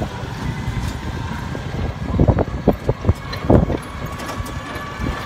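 A vehicle's engine running steadily while under way, with a few short knocks or rattles between about two and three and a half seconds in.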